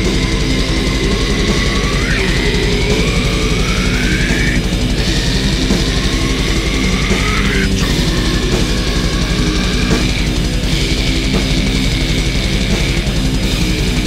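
Grindcore song playing loud: dense, distorted heavy metal music that never lets up.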